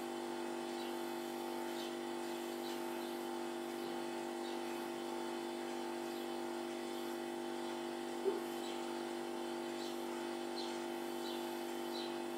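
Short high cheeps from a fledgling house sparrow, scattered at first and coming more often near the end, over a steady low hum. A single brief click a little after the middle.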